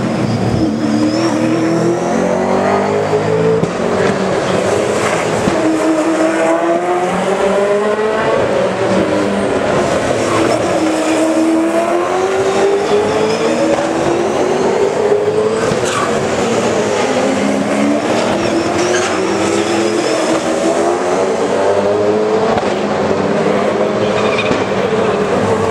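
V8 Supercars race cars' 5-litre V8 engines at full throttle, one car after another. Each engine rises in pitch, breaks at an upshift and rises again, with several cars overlapping throughout.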